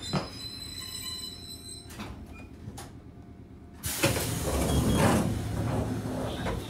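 Inside an electric commuter train car standing at a stop: about four seconds in, the sliding doors open with a sudden loud burst of air hiss and a rumble lasting about two seconds. Before that the car's running noise is low and fading.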